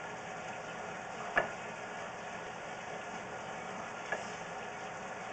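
Sewer inspection camera being fed down a drain pipe: a steady hiss, with a sharp knock about a second and a half in and a lighter one about four seconds in, as the camera head bumps along the pipe.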